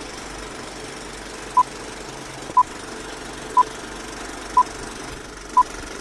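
Film-leader countdown sound effect: a short, sharp beep once a second, five in all, over a steady film-projector clatter.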